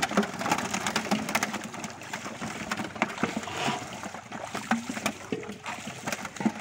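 Many fish thrashing and leaping in a net drawn tight in shallow pond water, making a dense run of short, sharp splashes.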